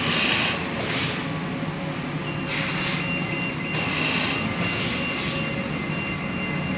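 Stand-up zipper pouch making machine running: a steady mechanical hum, with short hisses every one to two seconds and a faint steady high whine from about two seconds in.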